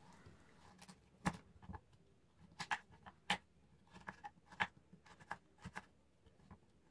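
Kitchen knife cutting a raw carrot on a wooden cutting board: about ten sharp, uneven knocks as the blade goes through and strikes the board.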